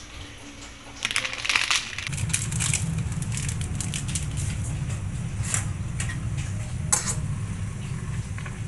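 A plastic instant-noodle packet crinkles briefly about a second in. Then comes the steady low rumble of a pot of ramen boiling hard on a gas burner, with a few sharp clicks of a metal fork stirring against the stainless steel pot.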